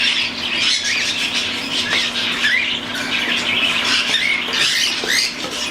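Several young cockatiels chirping and squawking continuously in overlapping short, high calls.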